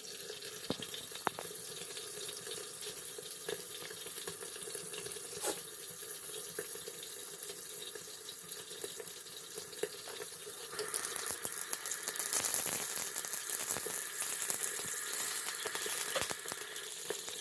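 Chicken wings frying in hot oil: a steady sizzle with scattered pops and crackles, getting louder about eleven seconds in.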